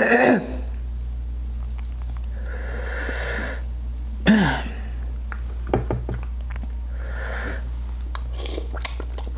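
Close-up eating of seafood boil crab legs: scattered small wet clicks of chewing and lip smacks, two longer breathy sounds about three and seven seconds in, and a short hummed "mm" about four seconds in, over a steady low electrical hum.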